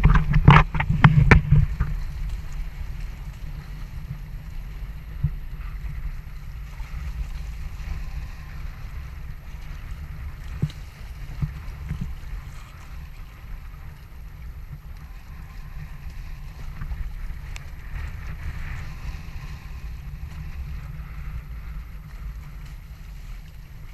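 Wind buffeting the microphone with a steady low rumble, and water rushing and splashing along the hulls of a Hobie Tandem Island sailing trimaran under way in choppy water. Several loud gusts or splashes hit in the first two seconds, with a few smaller ones later.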